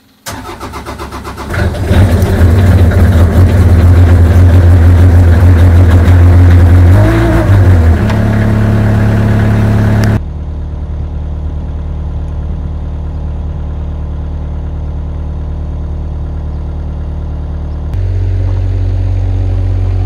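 Avant 635 compact loader's diesel engine cranked by its starter and catching after about a second and a half. It runs loud and fast for several seconds, then drops abruptly to a quieter, lower run about ten seconds in, picking up a little near the end.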